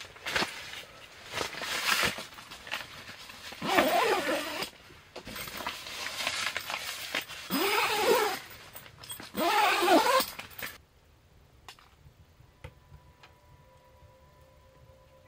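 Rustling and scraping of tent fabric as the roof window is handled, with three squeaky scrapes that rise and fall in pitch about 4, 8 and 10 seconds in. About 11 seconds in it goes quiet, leaving only a few faint ticks.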